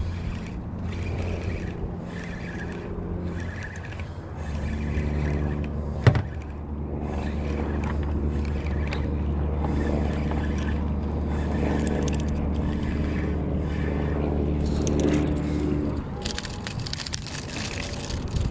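Spinning reel being cranked to bring in a fish, whirring in short pulses with each turn of the handle, over a steady motor hum that starts about four seconds in and stops near the end. One sharp knock about six seconds in.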